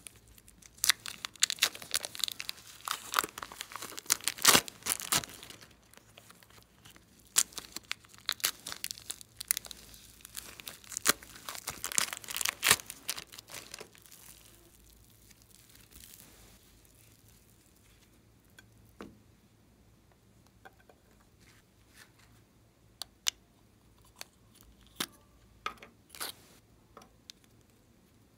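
Plastic zip-lock bag crinkling and soft modelling clay crackling and tearing as it is pulled from the bag and kneaded, dense for about the first half, then thinning to quiet handling with a few sharp clicks near the end.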